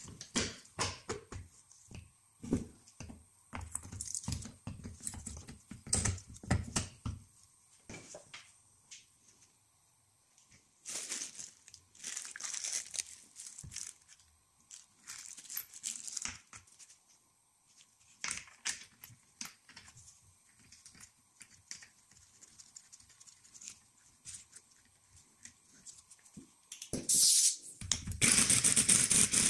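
Metal parts of a car's front strut assembly being handled: clicks and knocks of the top mount and coil spring, and a small plastic parts bag rustling. About two seconds before the end, a power wrench starts running on the strut's top nut, much louder than the handling.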